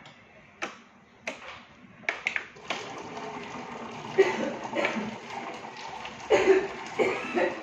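Water splashing and gurgling in a home-made water-can aquarium air pump, uneven with several louder splashes. A few light knocks come in the first couple of seconds.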